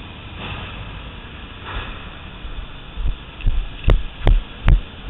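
Footsteps of a person walking, picked up as low, even thuds through a helmet-mounted camera. They come about two or three a second, starting about three seconds in, with three sharp clicks near the end, over a steady background hum.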